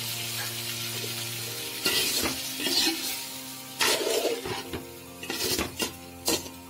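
Steady sizzle of spiced cauliflower, potato and egg curry just topped up with water. From about two seconds in comes a series of sharp scrapes as a metal slotted spoon stirs it against the pot.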